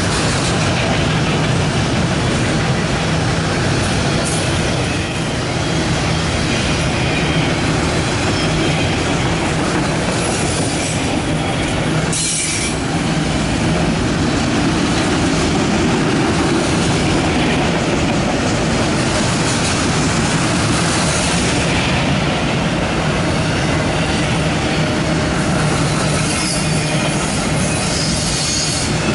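Autorack freight cars of a CSX train rolling past close by: a loud, steady rumble and rattle of steel wheels on rail, with a sharp clank about twelve seconds in.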